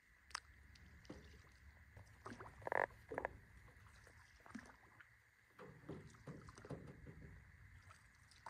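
Faint knocks and rubs from people shifting and handling gear in a canoe on quiet water, with a brief louder pitched sound about three seconds in.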